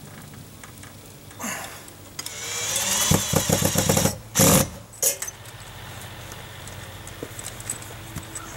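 Rustling and scraping of a coiled, foam-insulated copper line set being pulled and handled, building to a quick rattling and then two loud knocks about four and five seconds in.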